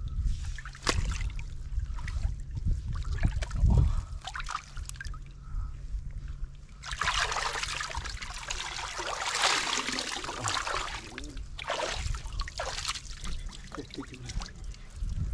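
Water in a shallow rock pool splashing and sloshing as hands grope under the water and stones, feeling for fish. The splashing is heaviest from about seven to eleven seconds in.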